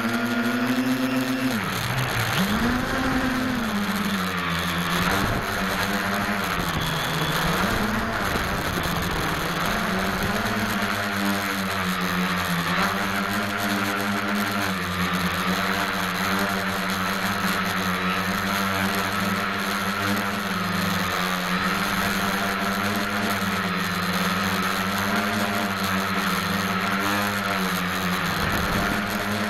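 SK450 quadcopter's four brushless motors and propellers buzzing, heard close up from the camera on its frame. The pitch rises and falls with the throttle, dipping sharply about two seconds in and again around seven seconds, then holds fairly steady with small wavers.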